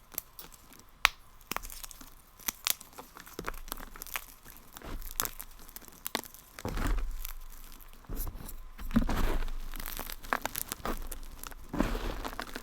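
Something brittle being crunched and crushed: a run of sharp crackles and snaps, with a few longer crunches about halfway through and near the end.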